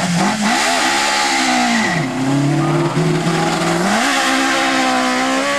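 Ford Escort Zakspeed BDA Group 4 race car's Cosworth BDA four-cylinder engine revving hard as the car pulls away from a standing start and accelerates past. The pitch climbs at first, drops to a lower, steadier note about two seconds in, then climbs again about four seconds in.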